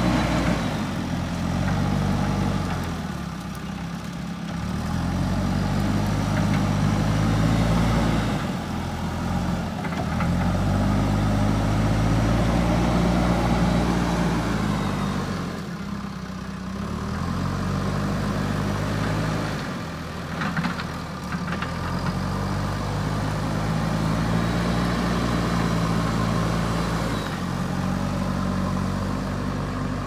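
JCB 3DX backhoe loader's diesel engine working under load, revving up and easing off again every few seconds as the machine drives and pushes with its front bucket. A brief clatter comes about twenty seconds in.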